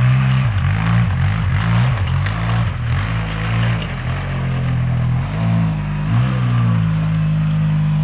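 An ATV engine, a 700, running hard in four-wheel drive through snow, its pitch rising and falling over and over as the throttle is worked, over a steady hiss.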